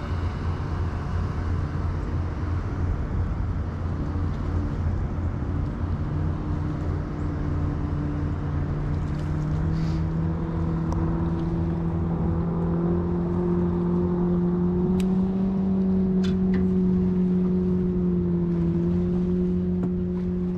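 Jet boat's engine running on the river, growing louder as it approaches, its pitch rising slowly to a peak and dipping slightly near the end as it passes, over a steady low rumble.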